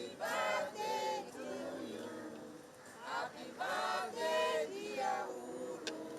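A group of voices singing together in held notes, phrase after phrase.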